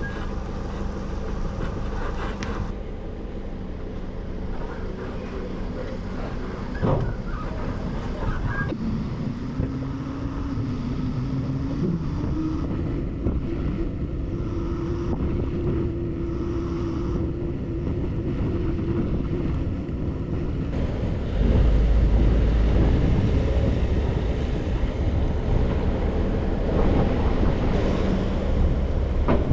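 Vehicle running with wind noise on the microphone. The engine note climbs about a third of the way in, and a heavier low rumble sets in about two-thirds through.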